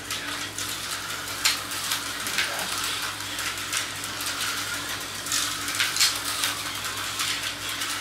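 Tyco HO slot cars racing round a plastic track: a steady hissing whir from the small motors and pickups running on the rails, with irregular sharp clicks as the cars run over the track.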